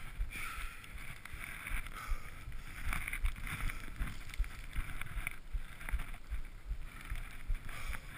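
Skis swishing through deep powder snow in a run of turns, each turn a rush of snow, with low thumps and wind buffeting on a body-worn camera microphone.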